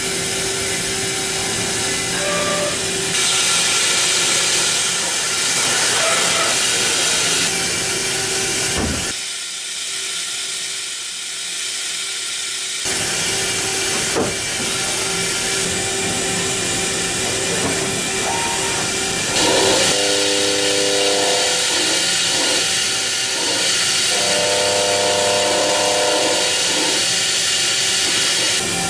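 Mazak Integrex i-100ST CNC mill-turn centre machining metal under coolant: a steady spray hiss with a low, constant hum from the machine. The hiss drops away for a few seconds about nine seconds in, and in the second half there are short stretches of pitched whine from the cutting.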